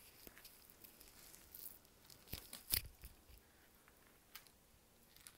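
Faint rustling and a few soft clicks of objects being handled, with two sharper clicks a little past the halfway point.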